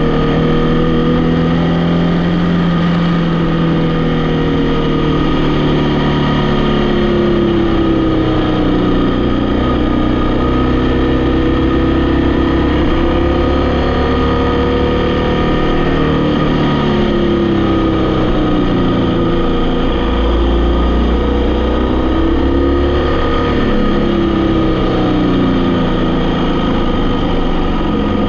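Vehicle engine running while driving, its pitch falling and rising again several times as the revs change, over a steady low rumble.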